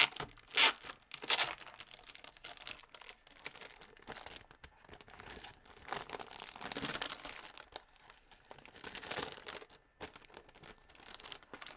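Clear plastic wrapper on a pack of origami paper crinkling as it is torn open and pulled off. Several sharp crackles in the first second and a half, then softer rustling with louder spells in the middle and near the end.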